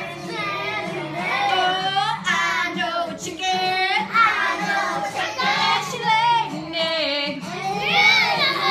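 Young children singing a simple song together with a woman's voice.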